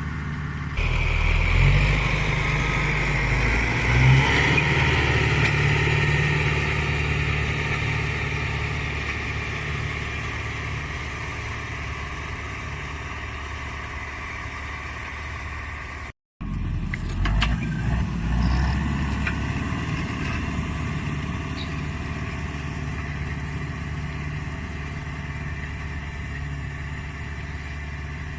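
Case CX80 tractor's diesel engine running steadily under load while pulling a four-furrow plough through heavy soil, getting louder about a second in and then slowly fading. The sound cuts out for a moment past the middle and the engine resumes.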